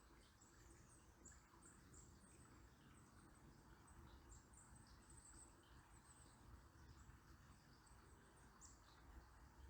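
Faint, high, thin bird chirps at irregular intervals over the soft, steady hiss of a flowing river.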